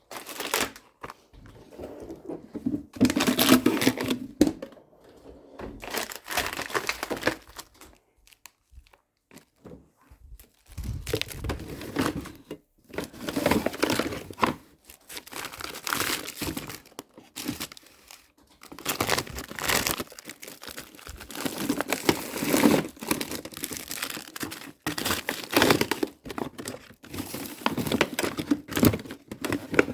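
Food packaging being handled and torn open, in irregular bursts with short pauses between them.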